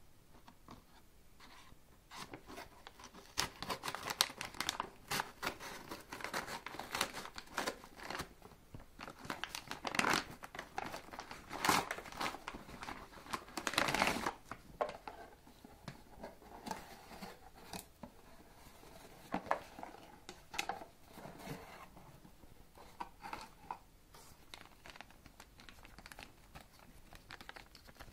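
Scissors cutting a paper mailing envelope, then paper crinkling and tearing as the envelope is pulled open, with a plastic parts bag rustling as the contents are handled. The cutting and tearing are loudest in the first half; later the handling is quieter.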